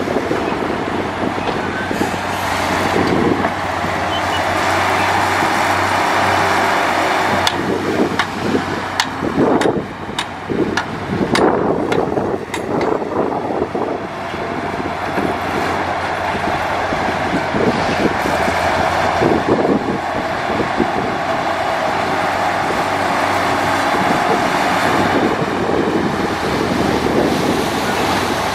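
Heavy diesel earthmoving machinery running steadily, with a run of sharp clanks and knocks about a third of the way through.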